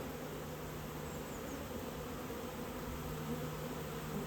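Honeybees buzzing at a hive entrance in a steady hum, the workers fanning their wings to spread Nasanov pheromone that calls their sisters back to the hive.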